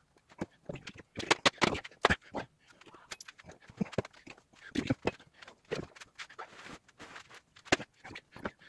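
Irregular snaps, clicks and scrapes as pliers pull staples and upholstery fabric off an armchair's wooden frame, with the cloth ripping loose near the end.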